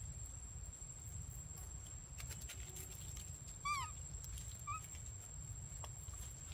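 Two short, arched high calls from an animal: a louder one a little past halfway and a fainter one about a second later. They sound over a steady low rumble and a thin, steady high-pitched tone.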